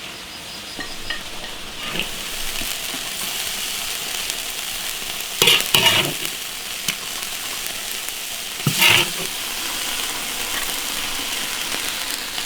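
Soft-shelled turtle and chicken wing stew sizzling in a wok over high heat as the sauce boils down. A spatula stirs and scrapes against the wok, clattering loudly twice, about halfway through and again a few seconds later.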